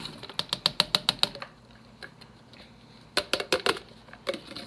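Sliced onions tipped from a plastic container into an electric pressure cooker's inner pot, making a fast run of small clicks and taps, then a second shorter run about three seconds in.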